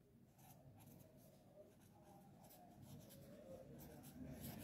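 Faint scratching of a pen writing by hand on lined notebook paper, a run of short strokes.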